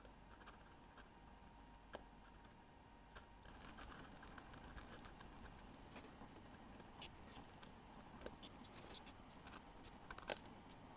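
Faint scattered clicks and light taps of small watchmaker's hand tools working on watch hands, over near-silent room tone; the sharpest click comes near the end.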